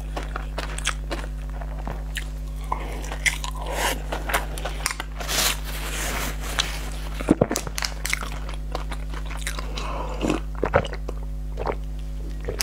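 Close-miked eating: biting and chewing sweet sticky rice, with many small crunches and wet mouth clicks and smacks.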